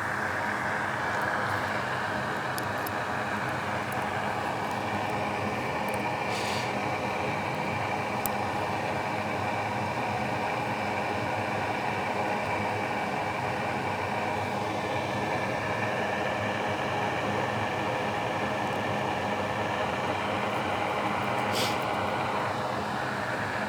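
Steady whooshing machine noise, with a few faint clicks about six, eight and twenty-two seconds in.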